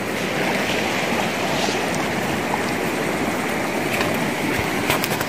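Steady wash of sea waves on the shore, with a few light clicks near the end.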